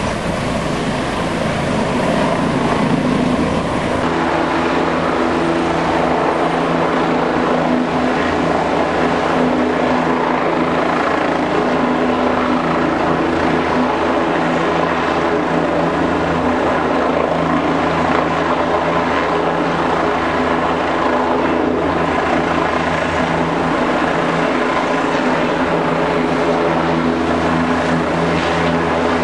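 Helicopter flying overhead with a load slung on a long cable, its rotor and engine running steadily. The tone shifts about four seconds in.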